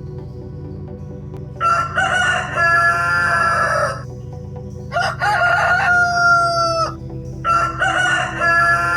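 Rooster crowing three times, each crow about two seconds long, over a faint steady music bed.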